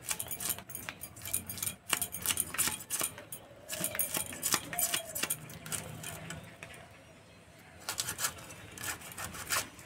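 Hilsa being scaled and cleaned on a boti: quick scraping strokes of the fish against the metal blade, in runs of rapid scrapes and clicks with a short lull a little past the middle.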